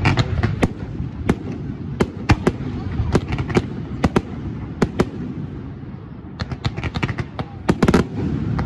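Fireworks display: a dense, irregular string of sharp bangs and crackling reports from shells and rising comets, over a low rumble. The bangs thin out for a moment past the middle, then come thick and fast again near the end.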